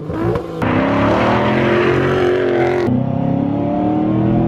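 Paxton-supercharged 2012 Ford Mustang GT's V8 pulling at full throttle, heard from the cabin, its pitch climbing steadily. About three seconds in the pitch drops suddenly at an upshift, then climbs again.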